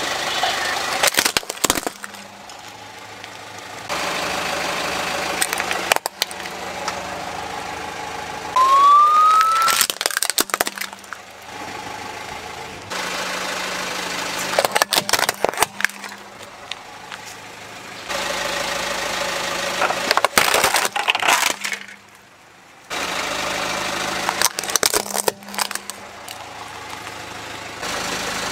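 Plastic toys cracking and snapping under a rolling car tyre: about five separate bursts of crunching and breaking, with a car engine running steadily between them and abrupt cuts from one crush to the next. One short rising squeal near the middle.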